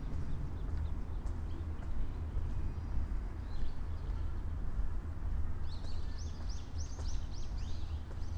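A small bird calling a quick run of about eight or nine high, repeated chirps about six seconds in, with a few fainter chirps earlier. Under it is a steady low rumble.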